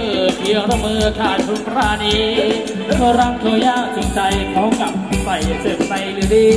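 Live band playing Thai ramwong dance music: a melody line over a steady drum beat.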